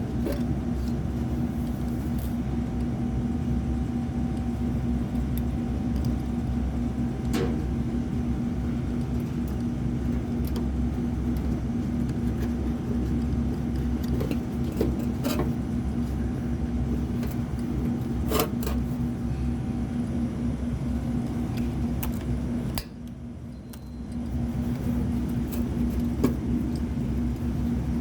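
A steady low machine hum, with a few sharp metallic clicks and taps of hand tools against the unit. The hum drops out for about a second about two-thirds of the way through, then comes back.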